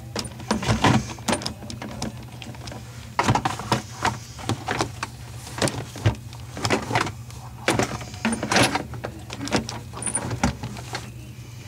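Irregular metallic clanks, knocks and scrapes of hand tools and fittings being worked under a bathroom sink while a faucet is taken off, over a steady low hum.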